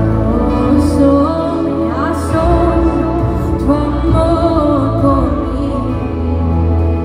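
Live contemporary worship band playing a slow song: drums, bass, electric and acoustic guitars and keyboards under a sung vocal melody, heard from the audience in a large arena.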